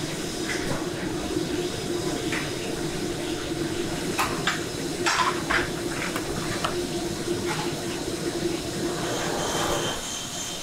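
Steady drone of commercial kitchen machinery with a low hum, and a few short clinks about four to six seconds in.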